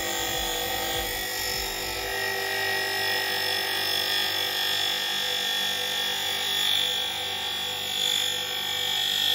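Electric bench grinder running steadily while a wooden axe handle is held against its spinning wheel, sanding down the wood. Motor whine and wheel-on-wood rubbing, rising and falling slightly in loudness.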